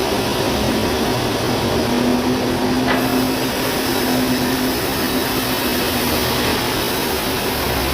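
Sawmill machinery running with a steady mechanical drone. A humming tone comes in about half a second in and fades near five seconds, and there is a single click about three seconds in.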